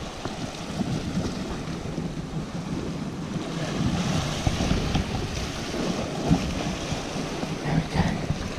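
Sea swell washing and breaking against the rocks below, with wind buffeting the microphone.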